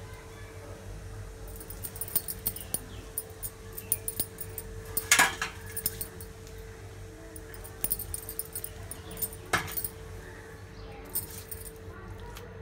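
Light clinking and tapping as hands pat and press a warm peanut-jaggery chikki mixture flat on a greased board, over a faint steady hum. Two louder, sharper sounds stand out, about five and nine and a half seconds in.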